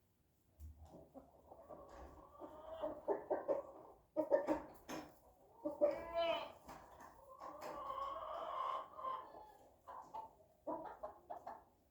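Chicken clucking and calling, a run of calls that wavers in pitch, with a few louder calls in the middle.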